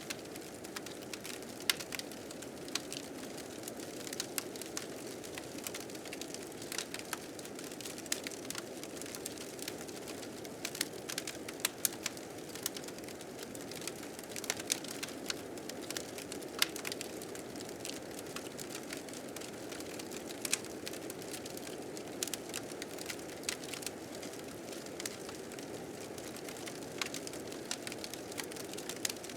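Fire crackling and popping in frequent irregular snaps, over a steady low rush of blizzard wind.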